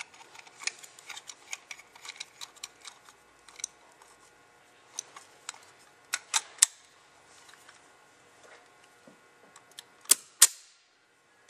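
Small metallic clicks and taps from handling a Lynx 100C spray gun and its air-test fittings in a bench vise, with two loud sharp clicks about ten seconds in as the pressure gauge is connected.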